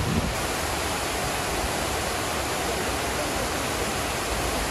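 A steady, even rushing noise, like falling water.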